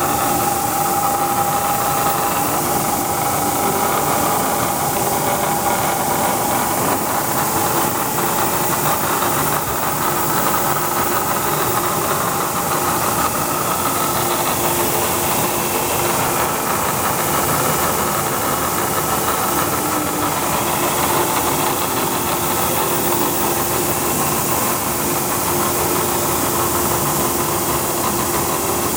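Vertical milling machine running steadily under power, a constant mechanical hum with a strong hiss and a few faint steady whining tones that fade in and out.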